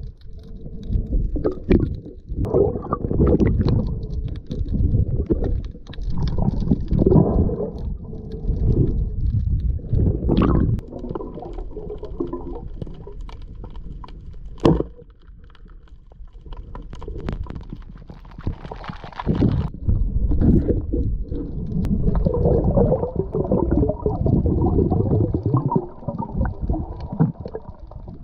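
Muffled underwater sound heard through a camera housing: water moving and gurgling in irregular low, rumbling surges as the diver swims, with a few sharp clicks.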